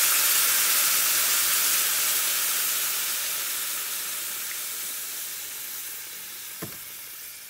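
Hot pan of browned lamb shanks, vegetables and browned flour sizzling and hissing as cold chicken broth is poured in from a carton, deglazing the pan. The sizzle fades steadily as the liquid cools the pan, with a light knock near the end.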